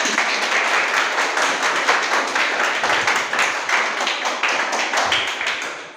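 An audience clapping in applause: a dense, steady patter of many hands that dies away near the end.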